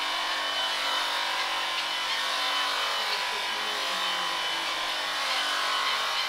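Electric sheep-shearing handpiece running steadily as it cuts through a sheep's fleece, a constant motor buzz with a thin high whine.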